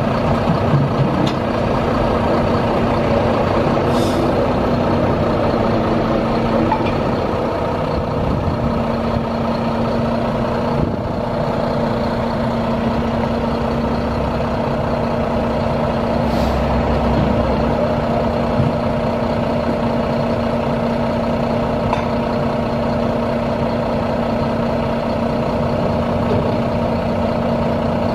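Diesel engine on an Iveco 260E truck-mounted boom lift running steadily at idle, with two brief hisses.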